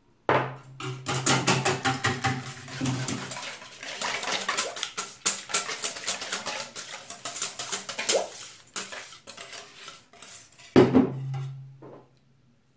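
Wire whisk beating an egg, milk and flour batter in a stainless steel bowl: rapid clinking of the wires against the metal. The whisking goes on for about ten seconds, then comes back briefly and louder near the end.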